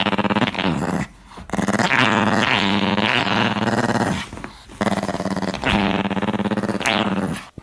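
A dog growling in long, wavering grumbles, with a few short pauses between them, cutting off abruptly near the end.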